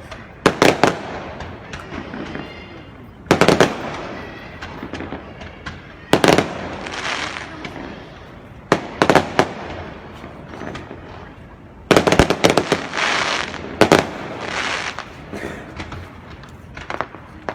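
Aerial fireworks bursting: a loud bang every few seconds, each followed by a crackling hiss as the shell's stars spread and fade. A rapid string of small pops comes near the end.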